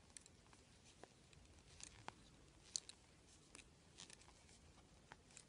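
Near silence with faint, scattered small clicks of metal double-pointed knitting needles as stitches are worked.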